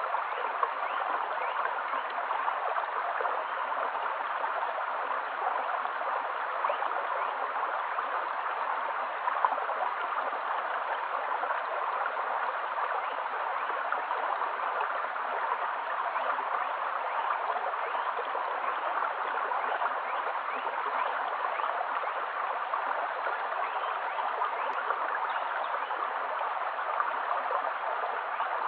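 A shallow stream flowing steadily over stones: an even, continuous babble of running water.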